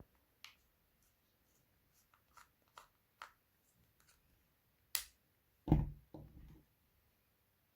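Scattered light clicks and taps of a mobile phone and small repair tools being handled during disassembly, with a sharp click about five seconds in and a dull knock just after it.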